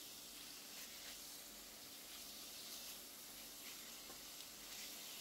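Thin-sliced beef, onion and garlic sautéing in oil in a stainless steel pot, a faint steady sizzle, with a few light scrapes of a metal spoon stirring.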